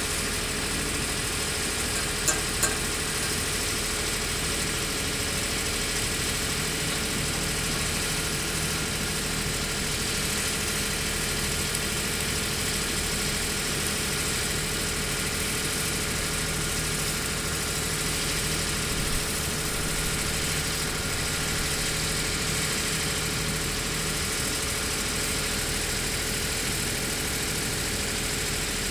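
Hydraulic excavator diesel engines running steadily, with two short sharp knocks a little over two seconds in.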